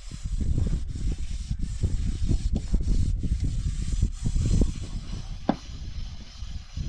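Hands working pieces of meat in a metal pot, with irregular rubbing and scraping and a few sharp clicks against the pot.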